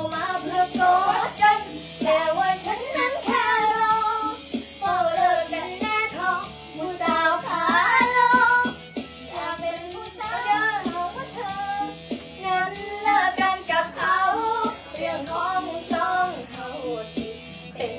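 A young girl singing a Thai song in the Isan dialect, with wavering, ornamented sustained notes, over instrumental backing music.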